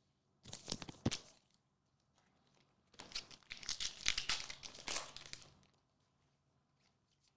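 Plastic trading-card pack wrapper crinkling briefly, then tearing and crinkling for a couple of seconds as the pack is ripped open.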